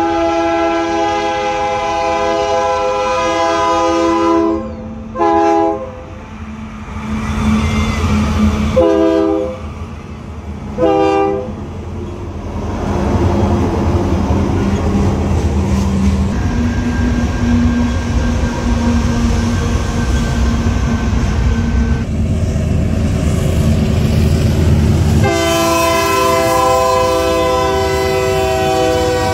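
Union Pacific freight train's diesel locomotive air horn sounding a multi-note chord. It gives one long blast, then short blasts about 5, 9 and 11 seconds in, and another long blast starting near the end. In between is the steady low rumble of the passing diesel locomotives.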